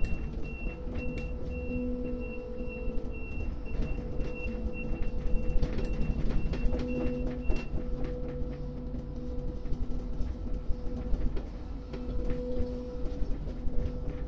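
Port crane machinery running with a steady low hum and rumble as its clamshell grab is lowered and swung. A high, rapidly pulsing beep sounds over it and stops about halfway through.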